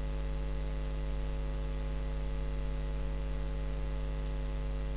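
Steady electrical mains hum with a faint hiss underneath.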